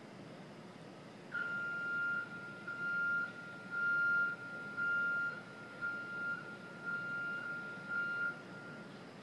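Warning beeper on window-washing equipment sounding a steady, high-pitched beep-beep-beep, about once a second, starting about a second in and running for some eight beeps.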